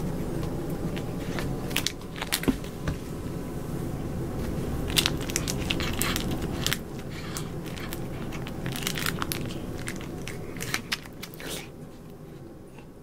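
Crinkling and crackling of a small paper silvervine sachet as it is handled and a cat bites and chews at it, in irregular clusters of sharp crackles over a steady low background rumble. The sound fades out near the end.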